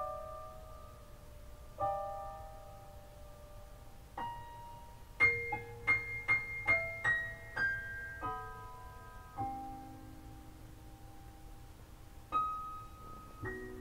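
Recorded jazz piano played back over a hi-fi system's floor-standing speakers through a 300B tube amplifier. It plays slow, sparse notes and chords, with a quicker run of notes about five to eight seconds in.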